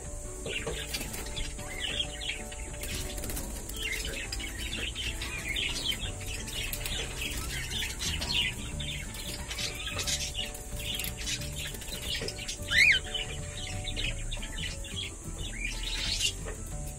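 Budgerigars chirping and chattering in quick, dense runs, with one louder, falling chirp near the end.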